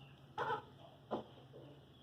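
Aseel chicken giving two short clucking calls, about half a second in and again at about a second.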